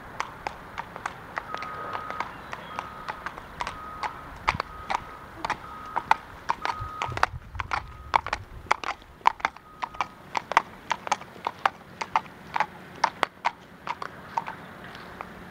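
Thoroughbred gelding's hooves clip-clopping at a walk on asphalt, sharp hoof strikes in a steady rhythm. A short high beep repeats faintly through the first half.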